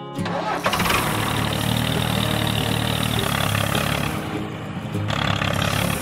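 Tractor engine starting about half a second in and then running steadily, with background music underneath.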